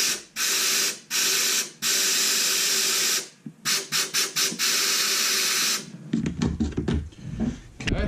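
Compressed-air blow gun hissing in a series of bursts as the trigger is pulled and released, forcing air down a clogged sunroof drain tube that has just started to let air through. The air stops about six seconds in, followed by knocks and handling noise.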